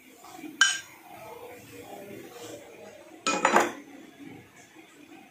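Steel ladle clinking against a nonstick pan while skimming oil off a thin curry, with two sharp clinks, one just after half a second and a louder one a little past three seconds, and faint liquid stirring between.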